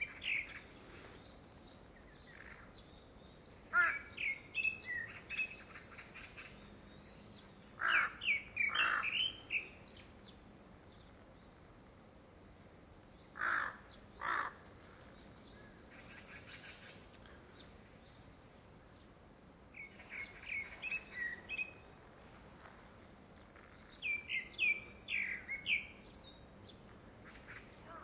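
Grey-backed thrush singing: short phrases of clear whistled and warbled notes, about six of them, separated by pauses of a few seconds. The uploader takes it for courtship song ahead of a second brood.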